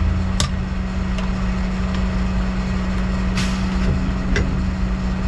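A truck engine idling with a steady low hum, while a steel pry bar clicks and scrapes against a trash truck's drive shaft U-joint as it is levered off the axle yoke; a few sharp metal clicks and a short scrape about three and a half seconds in.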